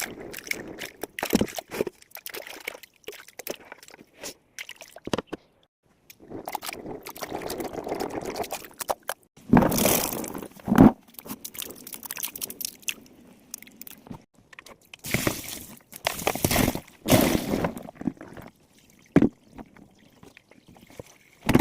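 Fresh potatoes being washed by hand in water: irregular splashing and sloshing with the rub and knock of potatoes, louder splashes about halfway through and again later.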